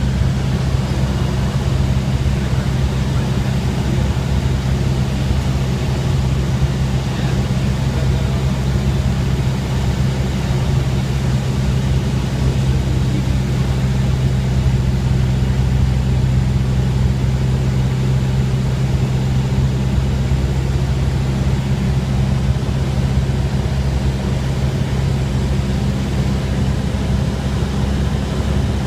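Cabin drone of a 1998 Cessna 172R in flight: its four-cylinder Lycoming engine and propeller running at a steady, unchanging pitch, heard from inside the cabin.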